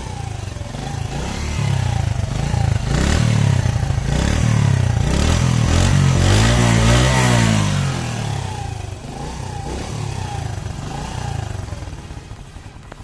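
Honda CD70 2022 model's small single-cylinder four-stroke engine being revved with the throttle several times. The longest, highest rev comes in the middle, and the engine then settles back toward idle.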